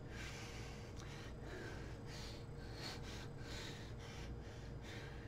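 A person breathing out in short, breathy puffs and hisses, one about every two-thirds of a second, over a low steady hum.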